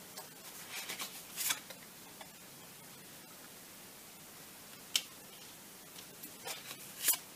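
Tarot cards being handled and laid out on a table: a few soft swishes and taps about a second in, a single sharp click around five seconds, and a cluster of slides and taps near the end.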